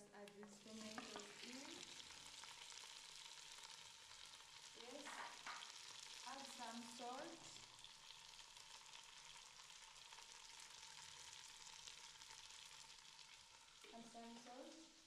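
Onions, green pepper and freshly added chopped tomatoes frying in oil in a pot, sizzling steadily.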